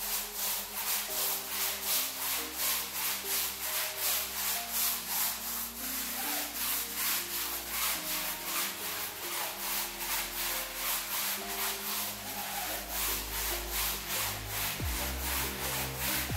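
Stiff push broom scrubbing a wet, soapy rug in quick back-and-forth strokes: a rhythmic scratchy swish, about two to three strokes a second.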